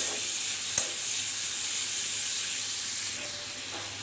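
Shrimp sizzling as they fry in a little hot oil in a karahi, a steady hiss that eases slightly toward the end. About a second in there is a single sharp click, the metal spatula knocking against the pan.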